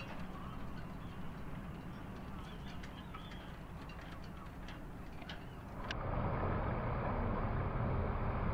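Steady wind and water noise aboard a sailboat under way, with faint light ticks. About six seconds in it changes abruptly to a louder, low rumbling noise.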